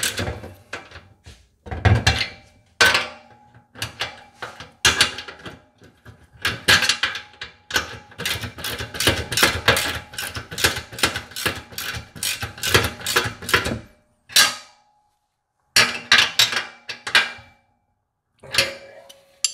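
Wrench tightening the hinge nuts on an aluminum-and-steel folding loading ramp: runs of quick metal clicks and clinks as the wrench works the nut against the frame, with two short pauses near the end.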